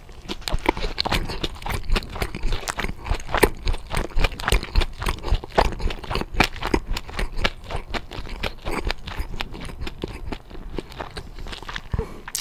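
Close-miked chewing of crispy fried chicken: a dense, irregular run of crunches and crackles as the batter is bitten and chewed.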